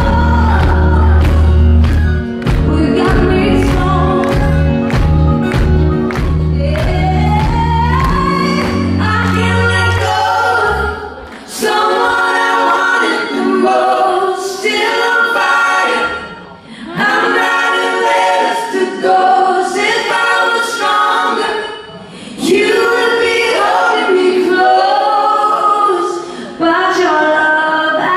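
Live band with a female lead singer and a steady beat; about ten seconds in the instruments drop out, leaving voices singing without accompaniment.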